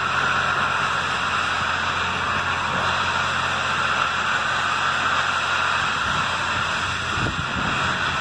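Norfolk & Western J-class 611 steam locomotive standing with steam hissing steadily from its front end, a brief low rumble about seven seconds in.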